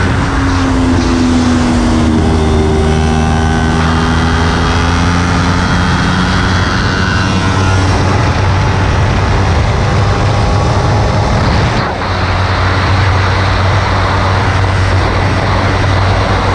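Kawasaki Ninja 300's parallel-twin engine running hard at speed, its note gliding up and down as the revs change, under a constant rush of wind on the microphone. The engine note breaks off briefly about twelve seconds in.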